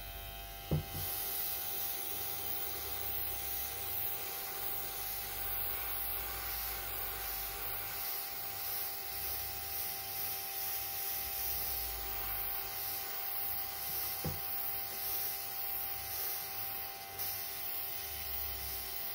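Airbrush hissing steadily as it sprays, over the steady hum of its small air compressor. A soft thump comes about a second in and another about three-quarters of the way through.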